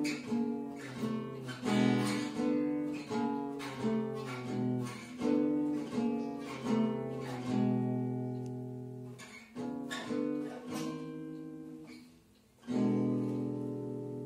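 Acoustic guitar playing the closing bars of a blues song, chords struck about every three-quarters of a second, then slower, longer notes. After a brief break, a final chord is struck about 12.5 seconds in and left ringing.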